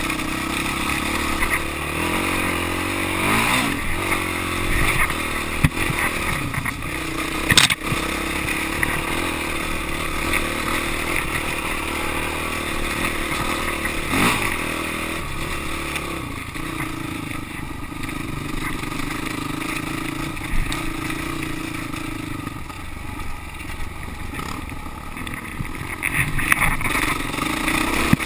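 Off-road motorcycle engine pulling up a steep dirt trail climb, its revs rising and falling with the throttle. Rattles come from the bike bouncing over rough ground, with a couple of sharp knocks.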